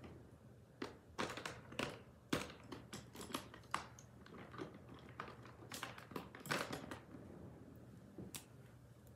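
Irregular sharp clicks and taps from paper and small items being handled on a desk, thinning out over the last couple of seconds.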